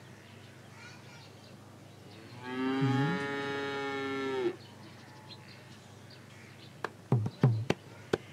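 A cow mooing once, a single long call held at a steady pitch for about two seconds. Near the end a run of sharp knocks begins.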